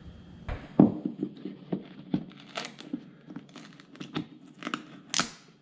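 Pliers gripping and working flooring staples out of a plywood subfloor, with wood splinters scraping: a run of irregular sharp clicks and scratches, the loudest about a second in and again near the end.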